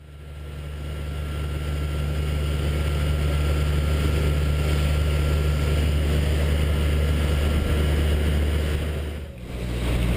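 Boat engine running steadily underway, a low even drone over the rush of water from the hull and wake. The sound fades in at the start and dips briefly near the end.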